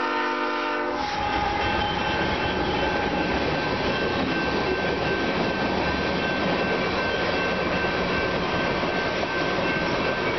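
BNSF freight train's locomotive horn sounding at a grade crossing, cutting off about a second in. Then the steady rumble and rattle of tank cars rolling past over the rails.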